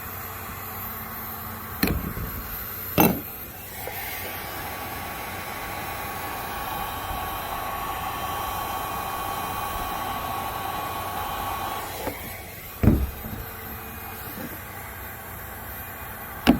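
Heat gun blowing steadily for about eight seconds, a fan hiss with a constant whine, used to melt polyethylene kayak plastic. Sharp knocks of tools or plastic being handled come before it starts and after it stops.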